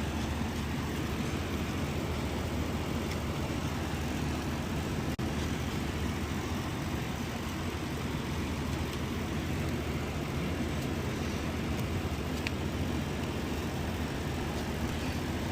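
Steady low rumble of workshop background noise with no distinct events, and one faint click near the end.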